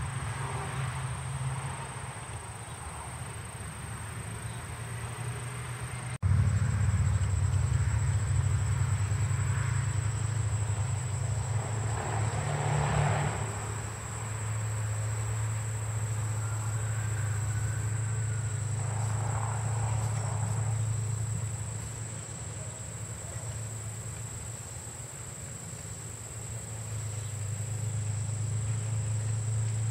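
Insects trilling in one steady high-pitched buzz over a steady low hum; the hum gets louder after a cut about six seconds in.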